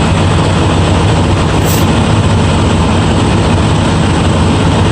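Semi truck's diesel engine idling, a loud steady low drone with no change in speed.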